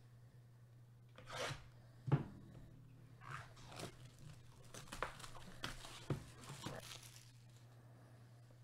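Plastic shrink wrap being torn and crinkled off a trading-card hobby box, in a series of short tearing, crackling bursts starting about a second in and ending near the end, over a faint steady hum.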